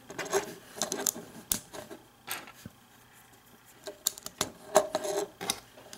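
Small plastic LEGO bricks clicking and clattering as they are handled and pressed onto a model: a run of sharp clicks, a quieter pause of about a second and a half in the middle, then more clicks.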